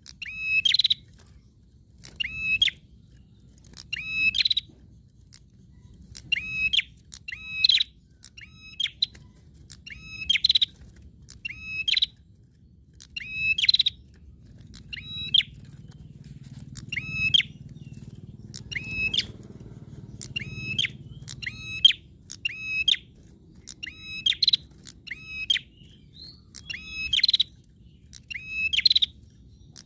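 Caged prenjak calling over and over in long repeated sequence: a short, sharp, high call about once every second or so, with a faint low rumble under the middle stretch.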